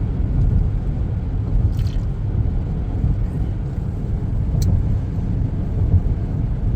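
Steady low rumble of a vehicle running, with no speech over it.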